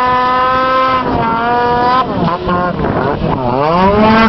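Snowmobile engine running at high revs as the sled skims across open water. The pitch is steady for about two seconds, then dips and climbs several times as the throttle is worked.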